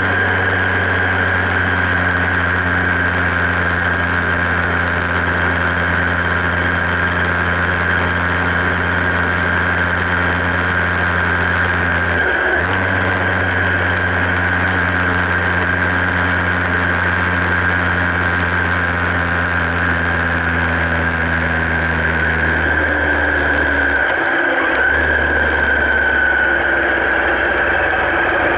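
Vehicle engine running steadily, with a steady high whine over its low hum. The hum breaks off briefly about 12 seconds in and drops lower in pitch about 24 seconds in.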